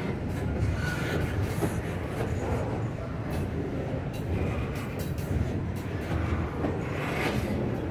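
Double-stack intermodal freight train rolling past: the steel wheels of the loaded well cars make a steady low rumble on the rails, with light clicks as they pass over the track. A brief faint high squeal comes about a second in.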